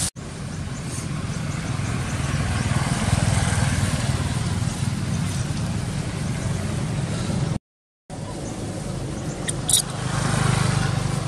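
Motorbike engines passing on the road, the low engine rumble swelling and fading twice, with a brief total break in the sound about two-thirds through. A single short high chirp comes soon after the break.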